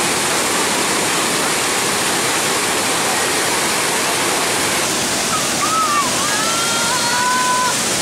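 Waterfall and the rocky stream below it rushing steadily, an even wash of falling water. A few brief, high, wavering calls sound over it in the second half.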